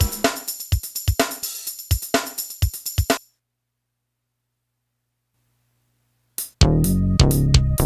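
Sampled drum pattern played back from an Ensoniq ASR-10 sampler, with deep kick hits under crisp hi-hat and cymbal ticks, recorded straight from the sampler's outputs. It stops abruptly about three seconds in. After a few seconds of dead silence, a loud new bass-heavy sample with drums starts near the end.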